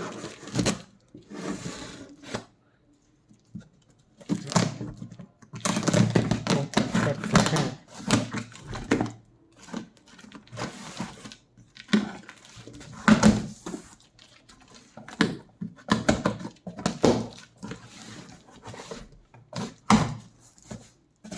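A tightly packed parcel being opened by hand: irregular tearing and rustling of the packing, with knocks as it is handled, and a longer stretch of tearing about six to nine seconds in.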